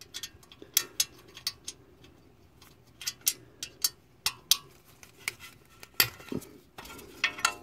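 Sharp metallic clicks and clinks in irregular clusters as a small wrench works the hold-down bolt of a car's front wheel speed (ABS) sensor loose.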